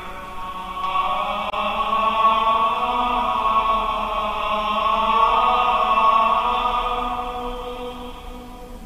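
Liturgical church music, chant-like, with long held notes that shift slowly in pitch. It swells about two-thirds of the way through, then dies away near the end.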